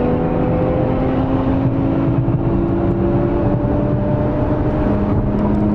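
Car engine droning at speed, heard from inside the cabin over steady road and wind noise, its pitch creeping slowly upward as it pulls.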